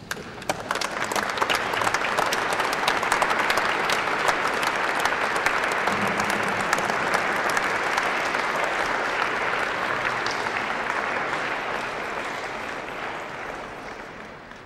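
A roomful of people applauding: many hands clapping at once, starting abruptly and fading away near the end.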